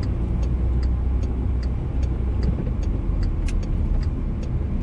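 A car's turn-signal indicator ticking steadily, about two to three clicks a second, over the low hum of the engine and tyres heard inside the cabin.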